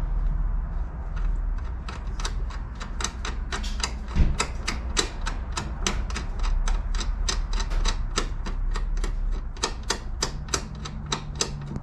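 Hand ratchet wrench clicking in quick, slightly uneven runs of about four clicks a second as it runs down the nuts on the strut mount, with one louder knock about four seconds in.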